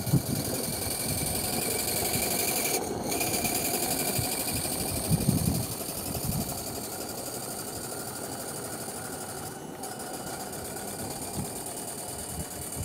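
Maxitrak 3/4-inch scale live-steam model traction engine running as it drives, a fast even beat of exhaust and moving parts, growing a little fainter after about five seconds as it moves away.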